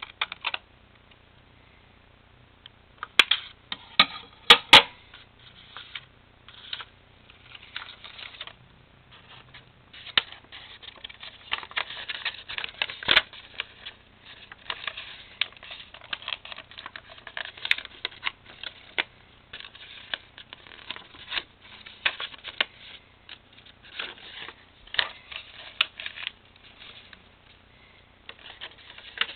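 A sheet of paper being cut with scissors and folded and creased by hand. A few sharp clicks come about three to five seconds in, then crisp rustling and crinkling runs almost continuously through the second half.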